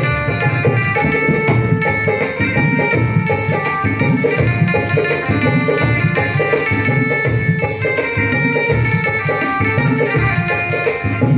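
Instrumental folk tune: a naal barrel drum played with the hands in a quick, steady rhythm, with maracas shaken along, under a stepping melody played on a banjo.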